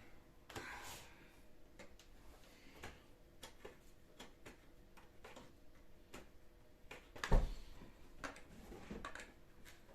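Light, irregular clicks and taps of parts and hand tools being worked during assembly of a wooden fireplace kit, with one louder knock about seven seconds in.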